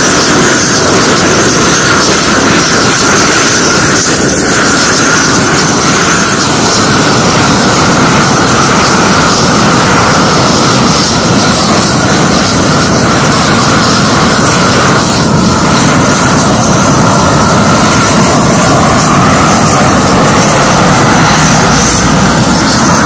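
Propane gas torch on a long lance burner, burning steadily with a loud, continuous rushing noise as it heats the sealed joint around a fresh tarmac patch.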